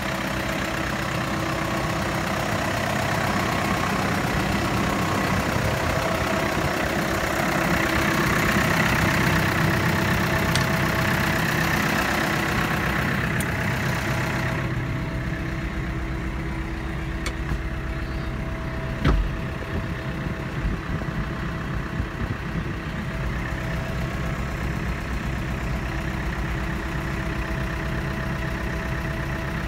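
Claas Axos 340 tractor's four-cylinder Perkins diesel idling steadily. A higher hiss drops away about halfway through, and a single thump comes about two-thirds of the way in, followed by a few light knocks.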